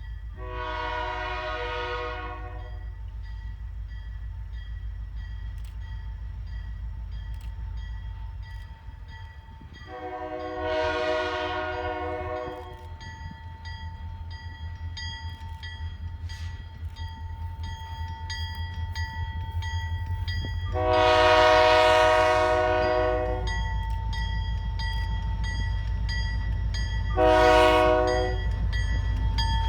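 Locomotive air horn of a Canadian Pacific SD40-2 diesel sounding four blasts about ten seconds apart, the first three long and the last short. A low diesel rumble runs underneath and grows louder near the end.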